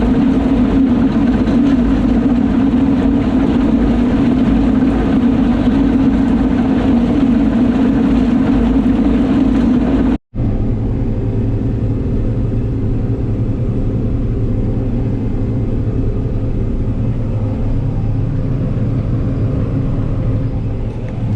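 John Deere 9660 STS combine running steadily under load while harvesting soybeans. About ten seconds in the sound drops out for a moment and comes back as a steadier, lower hum.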